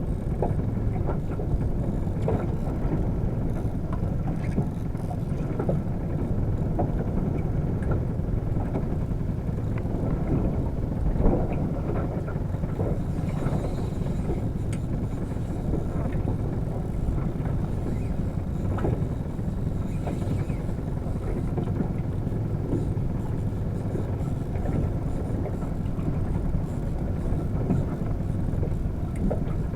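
Steady low rumble of a small fishing boat on the sea, with water slapping against the hull and one brief louder knock about eleven seconds in.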